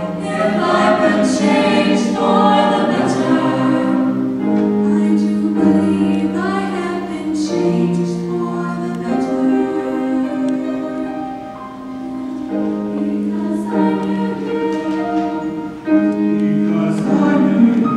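Mixed-voice choir singing in parts, holding long chords that shift every second or two.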